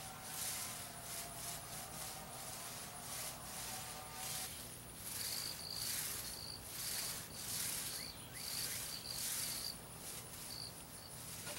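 Small paint roller swishing back and forth over a plywood board as it spreads wet oil-based paint, roughly one stroke a second. Alongside, a high insect chirping comes in short pulses, mostly in the second half.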